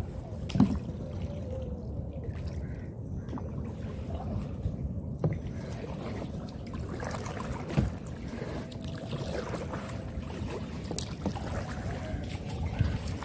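Small boat being rowed through backwater: a steady low wash of water with a few sharp knocks of the oar against the boat.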